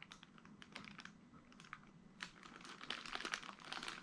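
Quiet, irregular light clicks and taps, coming thicker in the second half.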